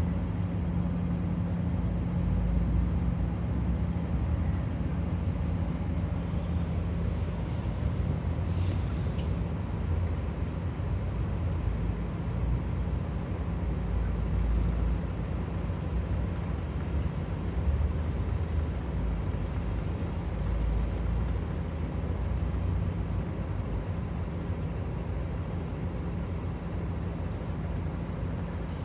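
Minibus engine idling steadily, with a low rumble and a constant hum.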